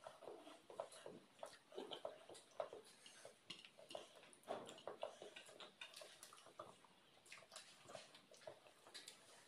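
Faint, irregular wet chewing and mouth smacks from people eating mouthfuls of peeled boiled eggs, with small clicks scattered throughout.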